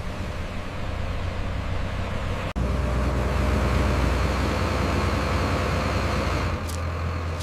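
Heavy diesel construction machinery engine running with a steady low drone. It breaks off for an instant about two and a half seconds in and comes back louder.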